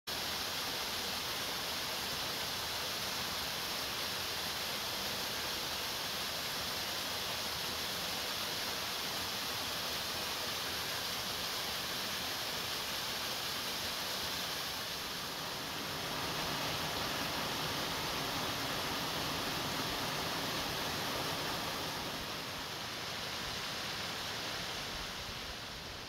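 Steady rush of a small waterfall splashing into a rock pool. It gets a little louder just past halfway and eases slightly near the end.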